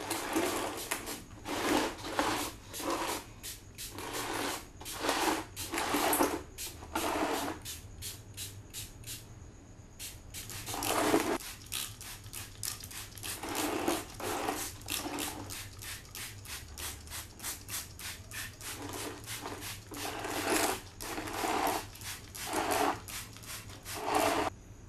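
Hand trigger spray bottle squeezed over and over, a long run of short hissing squirts, some quick in succession and a few longer, with brief pauses between runs, spraying onto a plastic safety helmet.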